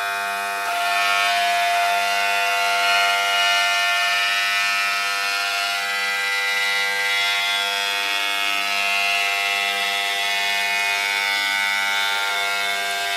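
Stone edge-grinding machine's electric motor and water-cooled cup grinding wheel running against the edge of a stone slab: a steady, high multi-toned whine with a hiss of grinding and spraying water, slightly louder from about a second in.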